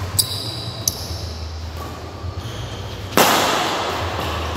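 Badminton doubles rally: rackets hitting the shuttlecock and shoes squeaking on the court, with one loud sharp hit about three seconds in that echoes through the hall. A steady low hum runs underneath.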